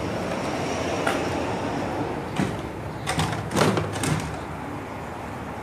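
Plastic RC truck body shell being handled and set onto its roll-cage chassis: a few light knocks and clatters, bunched a little after the middle, over a steady background rumble.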